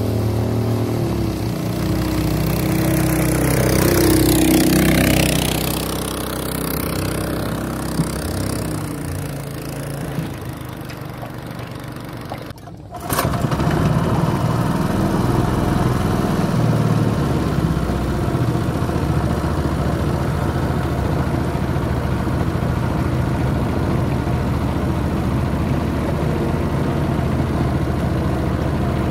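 Small engine of a wooden river longboat running steadily under way. Near the middle the sound briefly drops out, then comes back a little louder and steady.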